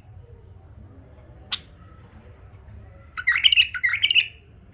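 Male bulbul singing: a single sharp note about a second and a half in, then a short, rich, warbling phrase near the end.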